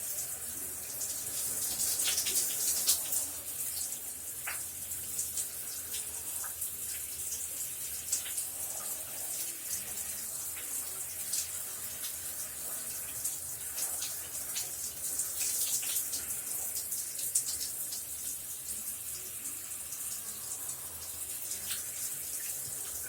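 Shower running: a steady hiss of spraying water, with scattered splashes of drops.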